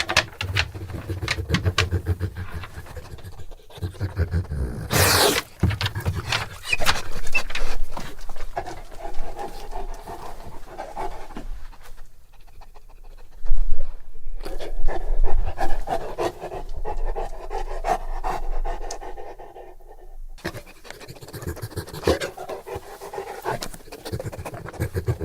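Bullmastiff panting heavily at close range, a fast rhythmic in-and-out breath with a few short pauses. There is a loud noisy burst about five seconds in.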